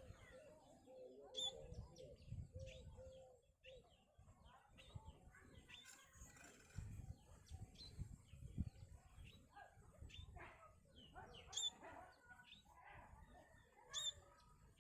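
Small birds chirping: many short, high chirps scattered irregularly, with a few sharper, louder ones near the start and near the end, over faint low rumbling.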